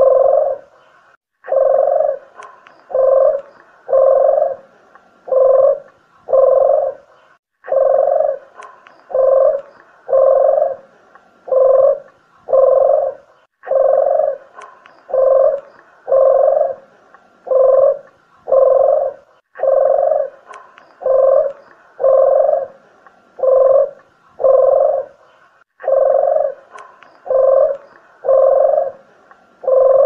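Spotted dove cooing: phrases of several low, hoarse coos, each phrase starting again about every six seconds in a steady, looped-sounding pattern, used as a lure call for doves.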